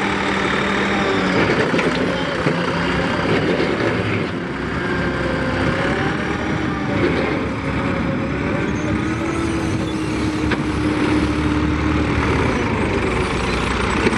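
Massey Ferguson 260 tractor's diesel engine working hard under load as it hauls a trolley heaped with sand. Its pitch wanders, rises about eight seconds in, holds high for a few seconds, then drops back.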